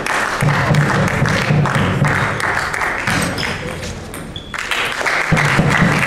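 Spectators clapping and calling out together, a dense crackle of many hands with voices under it. It dips briefly past the middle, then swells again.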